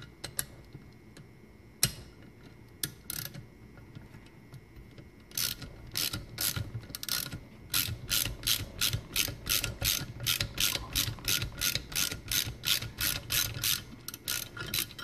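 Valve spring compressor being cranked tight over a valve spring on an LS cylinder head: a few scattered clicks, then from about five seconds in a steady run of ratchet clicks, about three a second, as the spring is compressed to seat the valve keepers.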